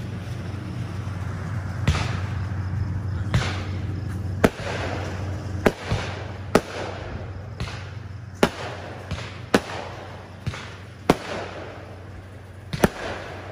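Aerial fireworks going off: a run of about ten sharp bangs at uneven gaps of a second or two, several followed by a short rushing hiss.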